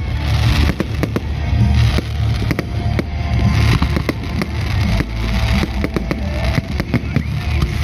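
Fireworks going off, a quick irregular run of sharp bangs and crackles over a steady low rumble.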